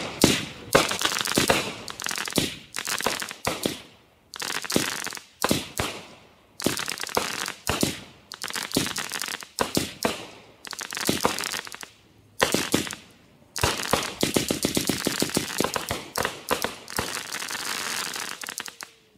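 'Black Thunder' consumer firework cake firing shot after shot, one or two a second: each a sharp pop followed by a crackling burst. There are a few short gaps between shots, and a fast run of crackles near the end.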